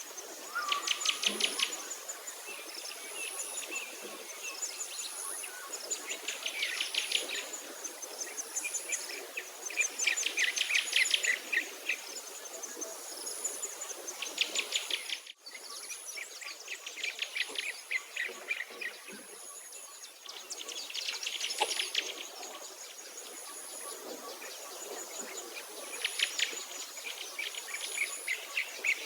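Songbird singing a rapid trill of quick notes about every four seconds. Behind it a thin, very high note repeats every couple of seconds, over a light outdoor background hiss.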